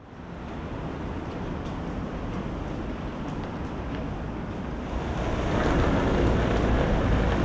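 City street ambience: a steady rumble of traffic and street noise, fading in at the start and growing louder about five seconds in.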